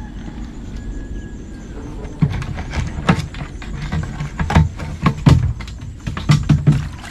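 Irregular knocks and thumps from a fish trap holding tilapia being handled and emptied, starting about two seconds in and coming in quick clusters.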